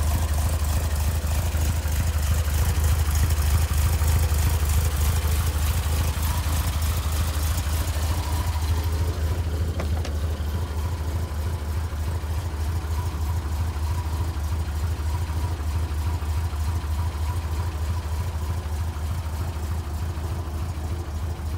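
An engine idling steadily: a low, even hum, with a hiss in the highs that fades about nine seconds in.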